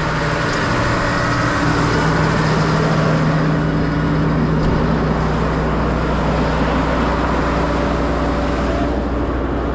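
Tractor engine running steadily at raised revs, with an even hiss over it.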